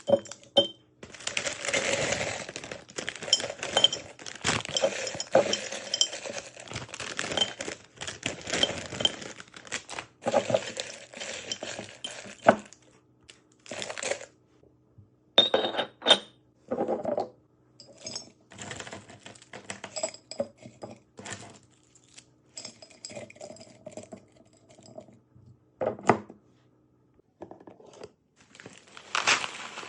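Hard items clinking and clattering against each other and against containers as a fridge is restocked by hand, in irregular bursts with short quiet gaps; busiest in the first dozen seconds, sparser after.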